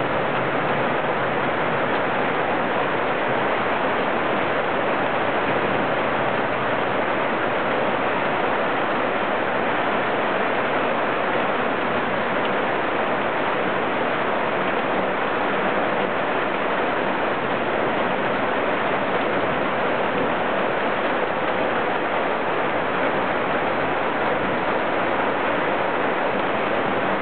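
Rain falling steadily, an even hiss that holds the same level throughout with no thunder claps.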